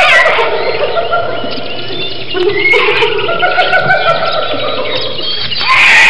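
Chimpanzees calling, several overlapping high-pitched calls at once, growing louder near the end.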